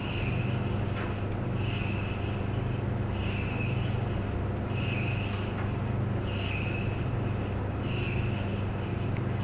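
Clothes dryer running: a steady low machine hum, with a short higher-pitched squeak or swish that recurs about every second and a half as the drum turns.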